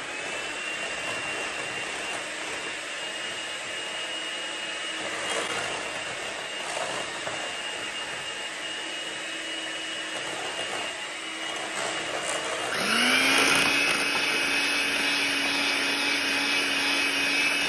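Electric hand mixer running steadily, its beaters whisking melted brown butter and sugar in a glass bowl. About thirteen seconds in it gets louder and its whine rises in pitch as the motor spins up.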